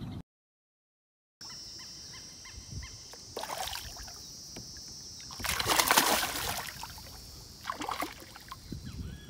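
Hooked yellow peacock bass thrashing at the water's surface: three splashes, the loudest and longest in the middle, over a steady high-pitched buzz.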